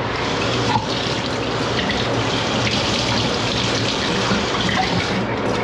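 A tap running steadily, cold water pouring over a marine engine thermostat to cool it so it closes back up, the last step of testing that the thermostat works.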